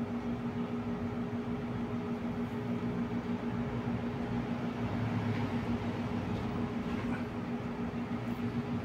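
Steady low electrical hum with several constant pitches, unchanging throughout, with no clicks or other events standing out.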